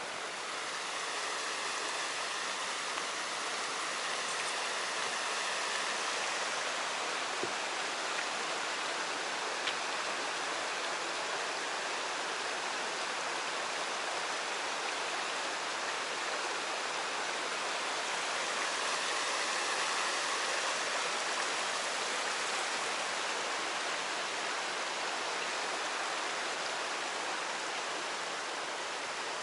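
Kiryu River water rushing and splashing steadily over a low concrete weir below the dam; the rush grows a little louder right at the start.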